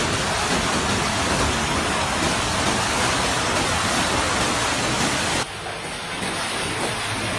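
Muddy flash-flood torrent rushing down a hillside: a dense, steady rush of water. About five seconds in it cuts off suddenly, giving way to a quieter rush of water.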